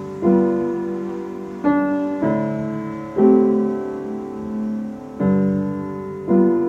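Slow background piano music: six chords struck a second or so apart, each ringing and fading.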